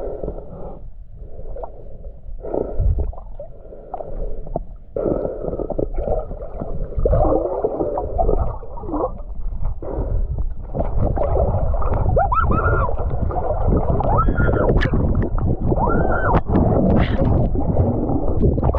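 Muffled sound heard underwater in a stream: a low rush of moving water with gurgling bubbles and scattered knocks, becoming busier and louder in the second half.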